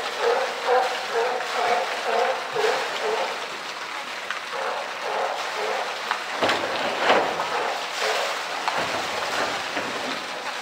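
Water sloshing and splashing in a polar bear's pool as the bear moves under the surface, over a steady rush of water from the pool's inlet. There is a louder splash about six and a half seconds in. People talk in the background during the first few seconds.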